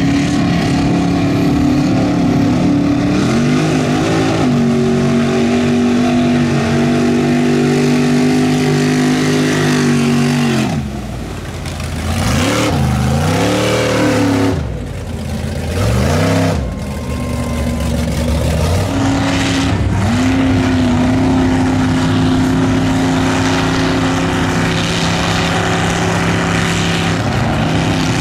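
Lifted 4x4 mud truck engine running hard at high revs while driving through mud, its pitch held steady. Around the middle the revs drop and climb back several times before holding high again.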